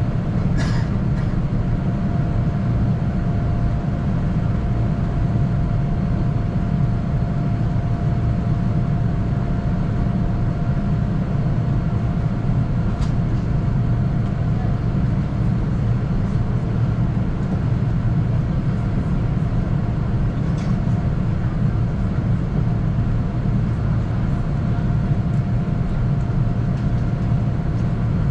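Steady cabin noise inside a Boeing 787-9 airliner in flight: a constant low rumble of airflow and engines with a thin steady hum above it and a few faint ticks.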